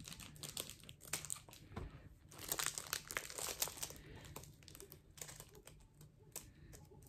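Clear plastic packaging on a planner crinkling and crackling as it is picked at and pulled by hand, in uneven runs of small crackles that are busiest in the middle.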